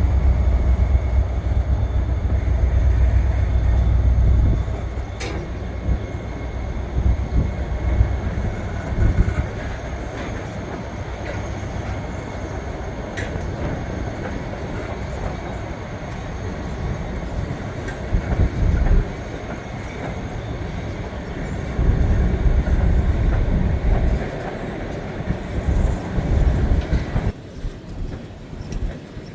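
Freight train rolling past, a steady heavy rumble with a few sharp clanks from the cars. The sound is loudest in the first few seconds and thins out near the end.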